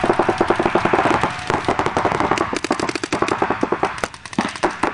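Paintball markers firing rapid, overlapping volleys of shots, many per second, easing a little about four seconds in before picking up again.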